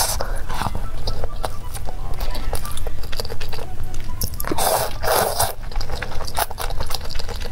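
Close-up eating sounds: wet chewing of a seaweed-wrapped rice bite with many small mouth clicks, then a loud slurp of thick noodles lasting about a second, around the middle.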